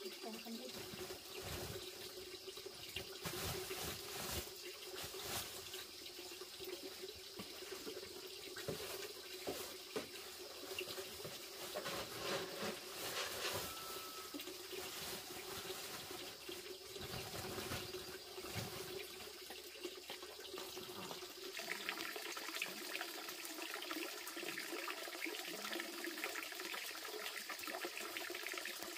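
Water running steadily, as from an open tap or pipe, with scattered rustles and knocks as a feed sack is handled.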